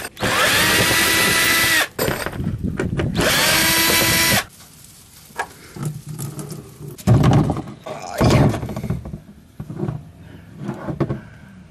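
Power drill motor running in two bursts, each spinning up to a steady whine and winding down, the second ending about four seconds in. Then quieter handling clatter with a couple of low thuds.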